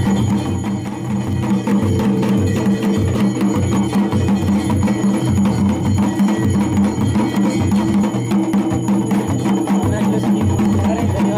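Traditional Kumaoni folk drums beating a steady, repeating rhythm for a temple jatra, with a steady held tone sounding underneath.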